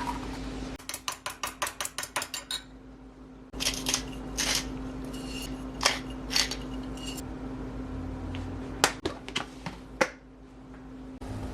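Kitchen utensils clinking against dishes: a quick run of rapid, evenly spaced clicks, then scattered single knocks and clinks, over a steady low hum.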